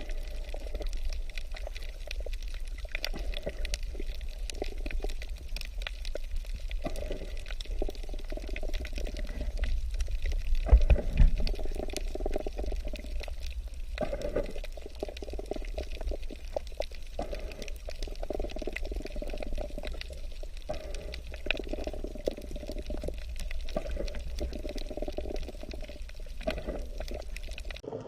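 Continuous watery sound that swells and fades, loudest about ten to twelve seconds in, over a steady low hum.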